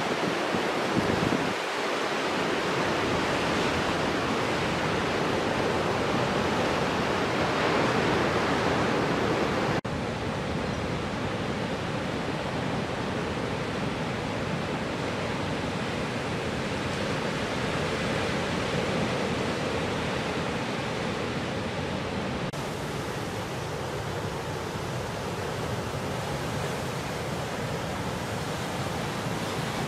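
Steady roar of ocean surf breaking, an even rushing noise that drops a little in level with an abrupt change about ten seconds in.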